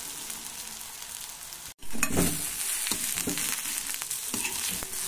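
Hot tempering oil sizzling under pieces of steamed dhokla in a kadhai. About two seconds in it gets louder as a perforated steel spatula stirs and tosses the pieces, scraping and knocking against the pan over the sizzle.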